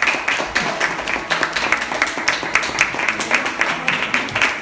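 Audience applauding: many hands clapping at once, steady throughout.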